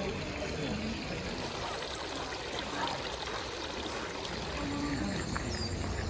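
Water trickling steadily from a row of bronze dragon-head spouts into a stone basin lined with pebbles.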